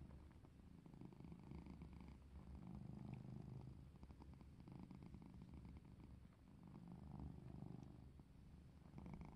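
A black-and-white domestic cat purring faintly while being stroked, the purr swelling and fading about every two seconds.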